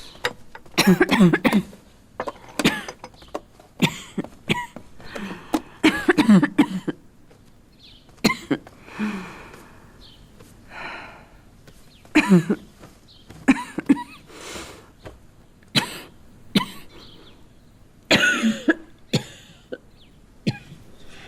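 A woman's acted coughing fit: repeated hacking coughs in clusters, with strained breaths in between and a quieter stretch about halfway. It is the cough of a lung illness deep enough to bring up blood, diagnosed as consumption.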